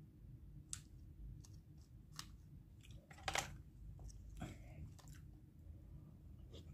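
Eating at close range: chewing and crunching, with sharp clicks of a plastic fork against plastic food tubs and a louder clatter a little over three seconds in, over a low steady hum.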